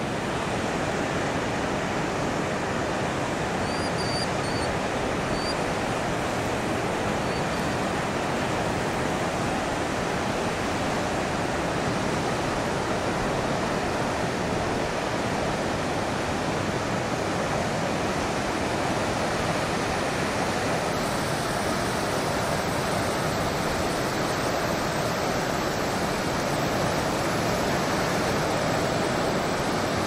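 Steady wash of sea water on a rocky shore, an even hiss without breaks. A few faint high bird calls come through about four to eight seconds in.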